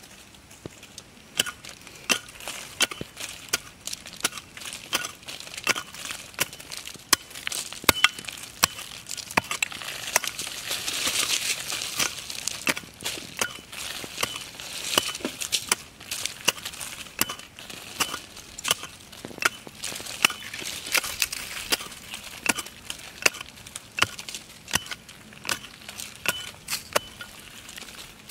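Small hand pick chopping into loose soil again and again, about one to two strikes a second at an uneven pace, with dirt crunching and scraping between the blows and a denser stretch of scraping about ten seconds in.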